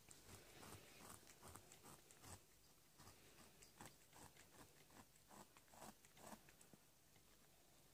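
Mother cat licking and chewing at her newly born kitten and birth fluids: faint, irregular clicks and smacks, a few a second.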